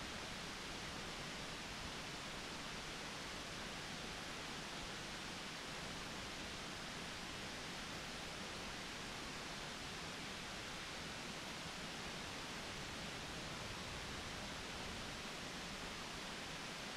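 Steady, even hiss with no distinct sounds standing out.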